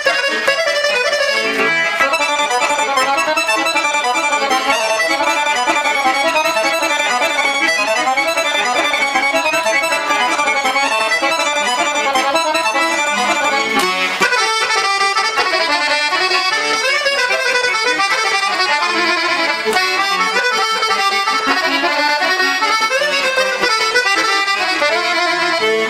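Dallapé piano accordion played continuously, a quick melody of many moving notes over sustained reed tones, freshly tuned and serviced.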